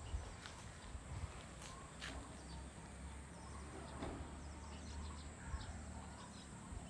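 Faint outdoor ambience: a low steady rumble with a few faint, short bird chirps and scattered light clicks.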